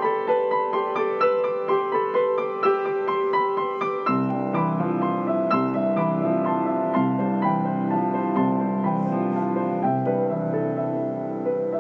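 Improvised solo piano accompaniment. Quick repeated notes in the middle and upper register give way, about four seconds in, to low bass notes and slower, held chords.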